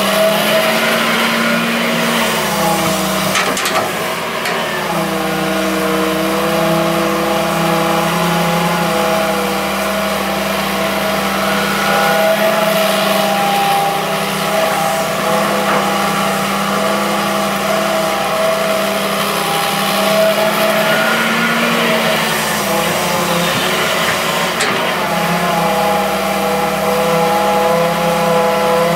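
Hitachi EX200-3 hydraulic excavator working: its diesel engine runs steadily under hydraulic load, the tone dipping and rising a few times as the boom and bucket move, with a couple of short knocks.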